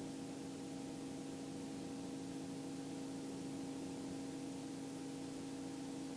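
Steady electrical hum with a constant hiss on the helicopter's intercom/radio audio feed, unchanging throughout.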